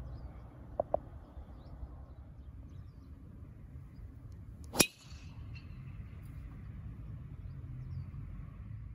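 Golf club striking a teed-up ball on a tee shot: one sharp crack about five seconds in, over a low steady rumble.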